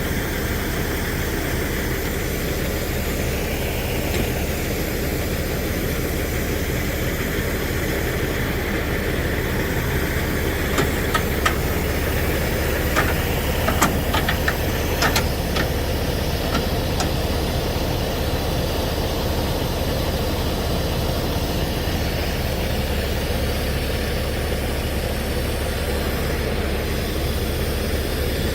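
Freightliner Classic semi truck's diesel engine running steadily at a low rumble. A few short sharp clicks come about halfway through.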